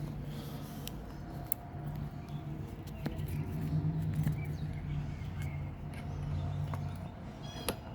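Metal parts of a kayak cart being handled as a wheel and locking pin are fitted: a few light clicks and a ringing metal clink near the end, over a steady low hum.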